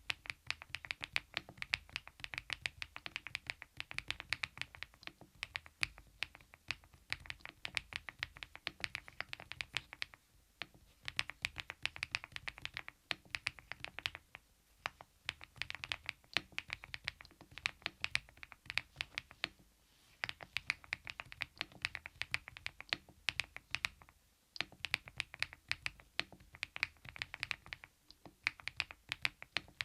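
Fast typing on a foam-dampened mechanical keyboard fitted with KeyTok Godzilla dye-sublimated keycaps, a steady patter of key strokes in runs of a few seconds with brief pauses between them.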